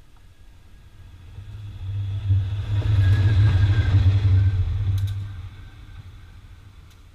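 Diesel-electric locomotive passing close by on the track: its deep engine rumble swells as it approaches, is loudest about three to five seconds in, with a couple of sharp clicks as it goes by, then fades as it moves away.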